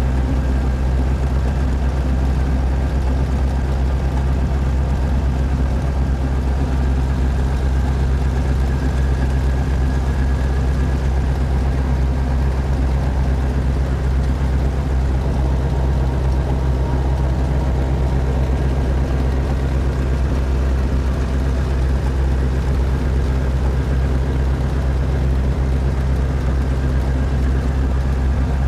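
Helicopter engine and rotor running steadily, heard from inside the cabin as a continuous deep drone.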